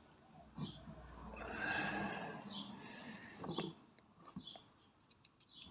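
Small bird chirping repeatedly, short high chirps every half second or so, over a louder rustling, scraping handling noise from about one to three seconds in, with a few sharp clicks.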